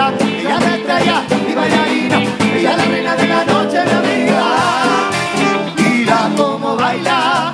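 Live cumbia band playing, accordion and guitar over a steady percussion beat.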